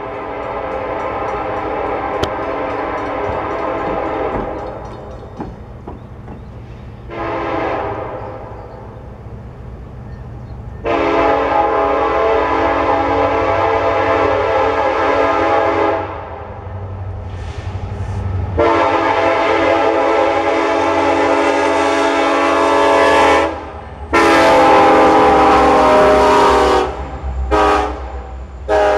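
BNSF diesel locomotive's air horn sounding a series of long and short blasts that grow louder as the train approaches, with several long ones of about five seconds and shorter ones between. The low rumble of the locomotives' diesel engines runs beneath.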